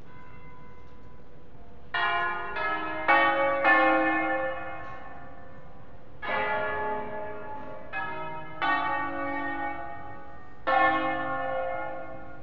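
Cremona Cathedral's peal of seven church bells, tuned in A-flat major, ringing a concerto: about eight strikes, four in quick succession about two seconds in and then single strikes spread out, each ringing on and slowly fading. The peal is rung to announce the start of a solemn service.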